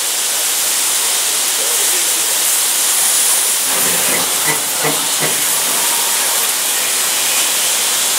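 Steady steam hiss from a standing narrow-gauge steam locomotive.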